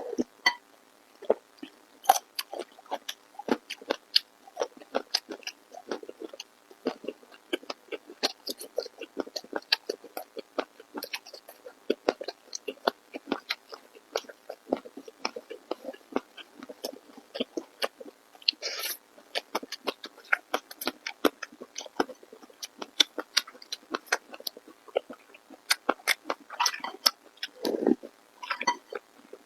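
Close-miked eating: dense, irregular wet chewing and mouth-smacking clicks, with a brief louder hiss about two-thirds of the way through.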